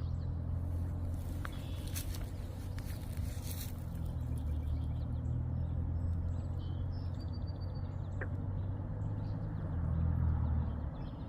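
Outdoor ambience: a steady low rumble, with a few brief clicks in the first few seconds and faint birds chirping in the second half.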